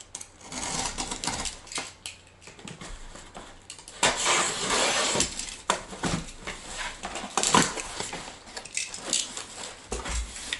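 A cardboard shipping box being opened and handled by hand: irregular scraping, tearing and rustling of cardboard and packing material, with small clicks and knocks, loudest about four to six seconds in.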